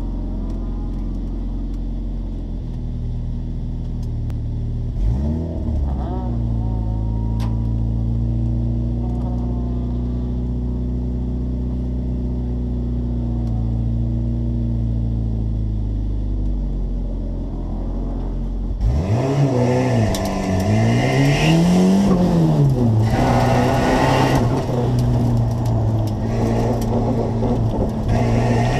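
1980 Volvo 242's turbocharged B23 four-cylinder idling, heard from inside the cabin, with a brief blip of revs about five seconds in. About nineteen seconds in it pulls away hard, and the revs rise and fall repeatedly as the car drives the autocross course.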